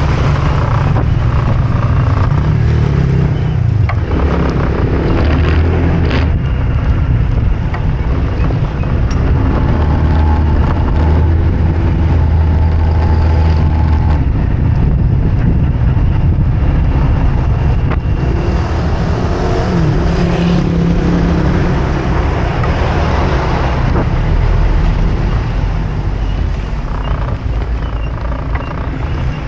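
Vehicle running along a street, a steady engine drone and road noise with the engine pitch shifting as it speeds up and slows.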